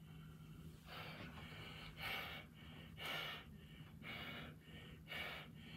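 A man's heavy rhythmic breathing, about two quick breaths a second, acted as sexual panting.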